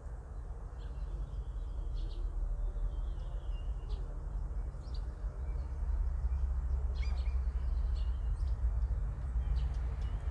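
Birds chirping, several short calls and brief twittering phrases scattered through, over a steady low rumble that swells a little about six seconds in.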